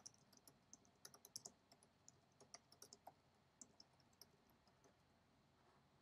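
Faint computer keyboard typing: an irregular run of light key clicks that stops about four seconds in.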